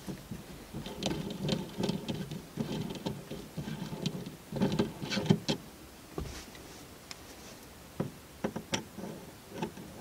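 Toyota Aygo's stock gear-shift knob being twisted off its threaded shift lever by hand: a run of scratchy rubbing and clicking for several seconds. This is followed by a few separate clicks and taps as the new knob is handled at the lever.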